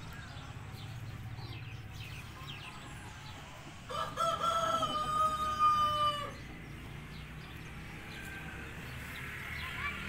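White Brahma rooster crowing once, starting about four seconds in and lasting a bit over two seconds, ending in a long held note.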